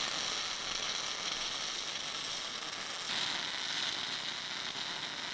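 MIG welding arc on steel plate, crackling steadily, with a shift in its tone about three seconds in.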